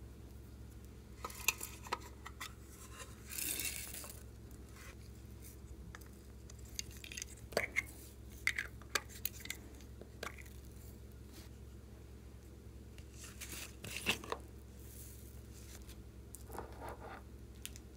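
Small plastic craft containers being handled while foam beads and glitter are poured and sprinkled onto slime in a glass tray. The sound is scattered clicks and taps, with a few short rattling, hissing pours.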